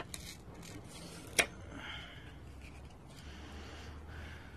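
Paper target sheet being peeled off a wooden board and handled, rustling softly, with one sharp click about a second and a half in.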